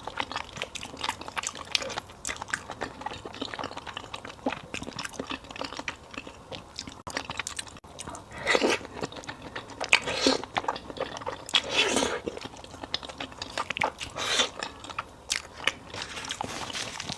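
Close-up eating sounds of a person chewing fried beef noodle soup: wet mouth clicks and chewing throughout, with a few louder, longer mouthfuls about halfway through and later.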